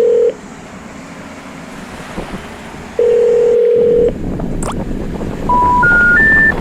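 Telephone line tones: a steady ringing tone sounds twice, a few seconds apart, over a faint hiss. Near the end come three short beeps rising in pitch, the special information tone that signals a call that cannot be connected.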